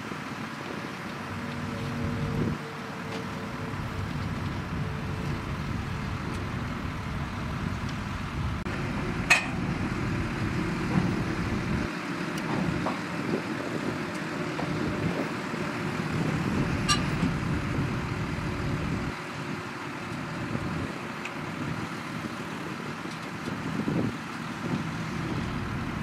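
Shantui DH17C2 bulldozer's diesel engine running steadily while working, its low sound shifting a few times. Two sharp metallic clanks come through, about a third of the way in and again about two-thirds in.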